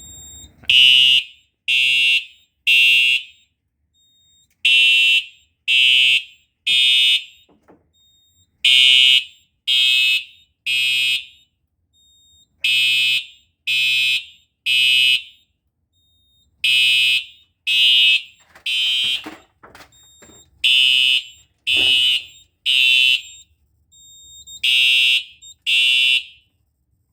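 Fire alarm horns on a Simplex system sounding the temporal-3 evacuation pattern: three half-second blasts, a pause, then the group again about every four seconds, starting about a second in. The alarm was set off by holding a test magnet to the smoke detector.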